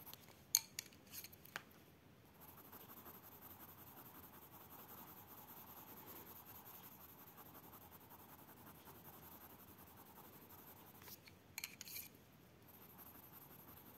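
Coloured pencil shading on paper: a faint, steady scratching. A few sharp clicks come near the start and again about eleven to twelve seconds in.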